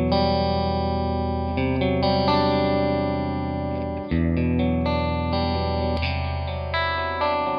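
Electric guitar chords played through an RFO Electronics Waterfall four-stage uni-vibe pedal set to chorus, the sustained notes wavering and pulsing with the pedal's modulation, changing chord a few times.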